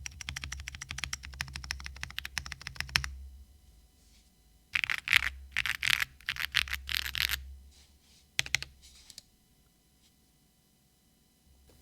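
Zoom TKL custom mechanical keyboard with lubed and filmed NovelKeys Cream linear switches on an FR4 plate, typed on quickly for about three seconds. After a short pause come a few louder, longer key strokes, and one more a little later.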